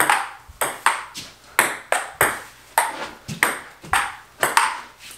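Table tennis rally: the ball clicking back and forth off the paddles and the table, about a dozen sharp pings with a short ring, two to three a second.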